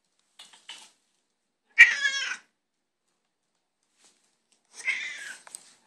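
Domestic cat meowing for its breakfast: two loud calls, one about two seconds in and a longer one near the end, with a few faint short sounds before the first.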